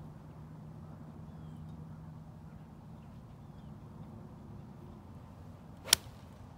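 A golf iron striking the ball from a fairway lie: one sharp, crisp click near the end, over a faint low hum and a few faint bird chirps.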